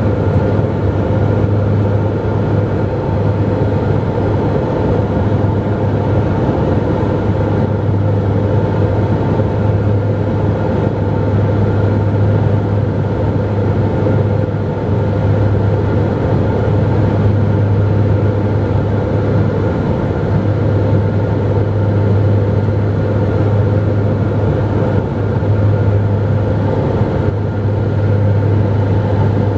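Steady cabin drone of a Dornier 228's twin turboprop engines and propellers in flight, with a strong low hum and a constant roar of noise.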